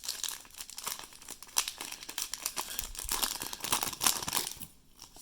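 Foil wrapper of a Panini Mosaic basketball card pack crinkling and tearing as it is opened by hand, a dense crackly rustle that dies down near the end.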